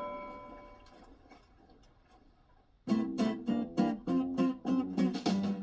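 The last chord of a song rings and fades away to near silence. About three seconds in, a guitar starts strumming chords in a steady rhythm, opening the next children's song.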